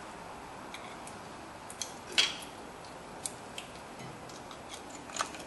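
Screwdriver prying a rear disc brake pad out of its caliper bracket and clips: scattered sharp metallic clicks and scrapes, the loudest a little over two seconds in.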